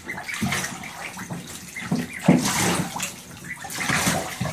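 Two-week-old ducklings splashing and paddling in bathtub water, with a louder splash a little over halfway through.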